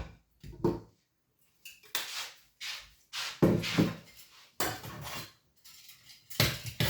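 Kitchen clatter: a series of short knocks, clinks and scrapes from utensils, dishes and pots being handled while cooking.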